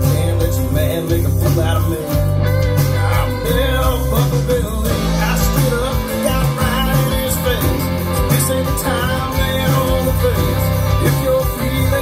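Country-rock song mix playing back in an instrumental passage: guitar over a heavy bass line.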